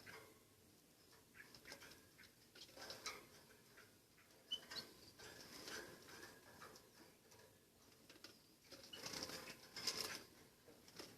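Faint scratching, pecking and fluttering from a small pet munia, with a couple of short high chirps about four and a half seconds in.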